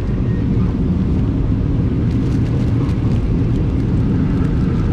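Steady low rumble of a State Railway of Thailand passenger train running, heard from inside the carriage, with faint crinkling of a plastic bag being handled.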